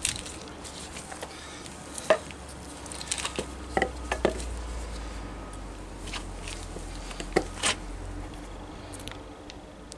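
Scattered clicks and knocks as a pair of car rear shock absorbers are handled and set upright, over a low steady rumble.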